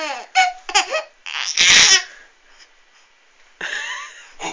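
Infant babbling and laughing in short high squeals, with a loud breathy burst about a second and a half in, then more babbling near the end.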